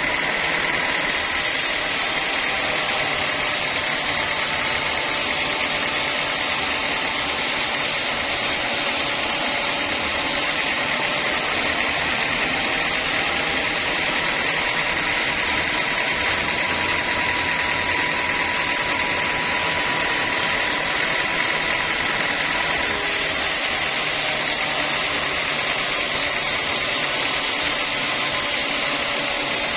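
Sawmill saw running steadily through teak wood, a continuous machine noise with a steady high whine; the hissy top end drops away about ten seconds in and comes back near the end.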